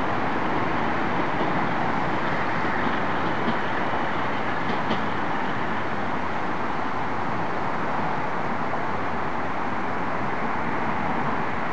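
Passenger train cars rolling away along the track: a steady rumble with no horn.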